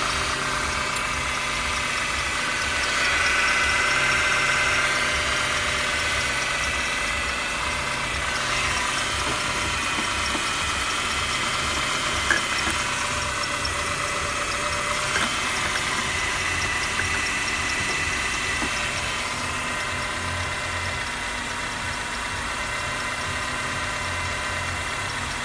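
Citroen Xsara's 1.4-litre KFW (TU3JP) petrol four-cylinder engine idling steadily, with a couple of faint clicks midway.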